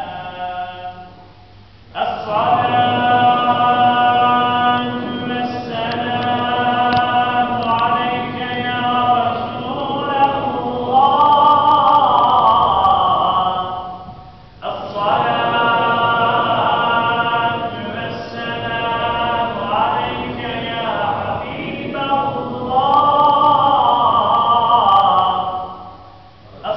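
Unaccompanied male religious chanting: a slow devotional hymn sung in two long, ornamented phrases of about twelve seconds each, with a short pause for breath between them.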